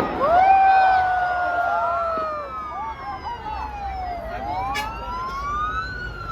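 Several sirens wailing at once, their pitch slowly rising and falling and crossing one another, over the noise of a busy crowd.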